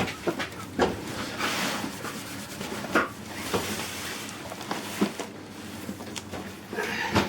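Irregular knocks and bumps, with a rustling scrape about one and a half seconds in, as things are handled and shifted about.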